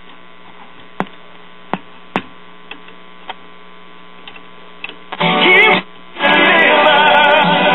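Steady buzz from the speaker of a circa-1941 Aircastle five-tube AC/DC radio, with crackles as the tuning knob is turned. About five seconds in a station comes in loudly for a moment, drops out, then comes back loud with broadcast singing.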